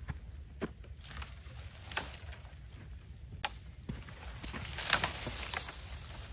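Leafy tree branches being pulled down and bent by hand: twigs cracking and leaves rustling, with one sharp snap about three and a half seconds in and a longer stretch of crackling and rustling near the end.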